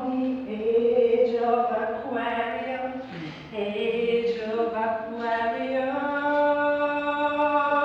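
An unaccompanied voice singing long, held, wordless notes in a chant-like line, sliding from one pitch to the next with brief breaths between.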